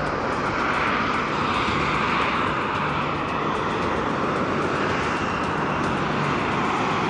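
Harrier jump jet's engine running at high thrust as the jet hovers for a vertical landing, its nozzles pointed at the ground: a steady, even jet noise.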